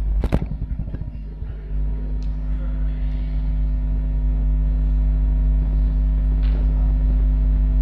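Steady electrical hum from the microphone and PA system. Just after the start, a sharp knock followed by a short rattle of fast ticks as the microphone stand is handled.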